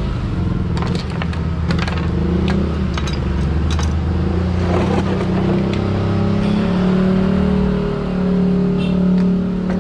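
A motor running steadily with a low, even hum, and a series of sharp clicks during the first four seconds.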